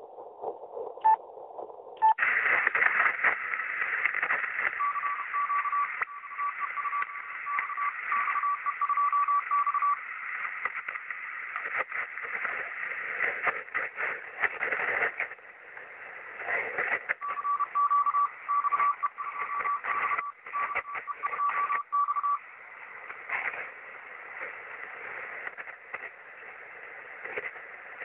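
Shortwave radio receiver tuned to the 30-metre amateur band: static hiss and crackle that jumps louder about two seconds in. Over it a Morse code (CW) signal sounds as a keyed beep, starting about five seconds in and again about seventeen seconds in, each time for about five seconds.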